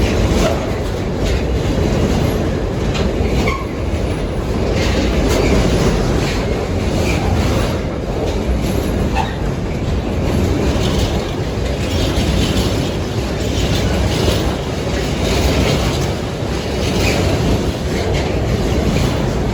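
A train passing over the level crossing at close range: a steady loud rumble with repeated clicks of the wheels running over the rail joints.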